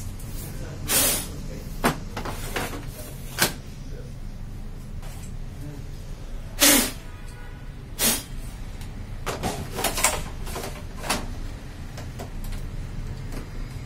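Plastic clicks, knocks and short scrapes from parts being handled inside the open front of a Xerox WorkCentre colour copier, about a dozen scattered through, the loudest about halfway in, over a low steady hum.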